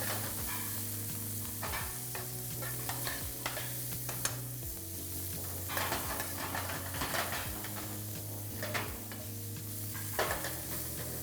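Garlic and red pepper sizzling in oil in a frying pan, with a spatula stirring and scraping against the pan every second or so.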